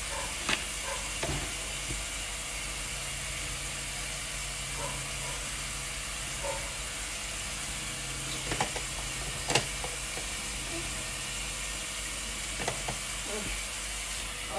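Dishes and utensils being handled during kitchen clean-up: a few scattered clinks and knocks over a steady hiss.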